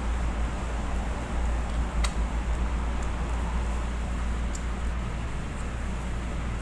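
Steady low rumble and hiss of background noise, with one sharp click about two seconds in and a couple of faint ticks later.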